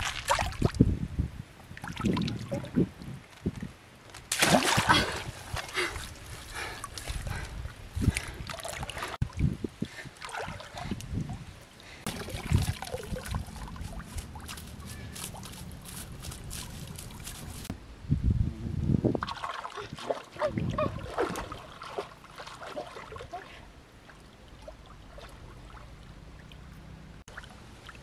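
Irregular splashing and sloshing in shallow, muddy stream water as someone wades and gropes through it with their hands, coming in bouts with quieter stretches between.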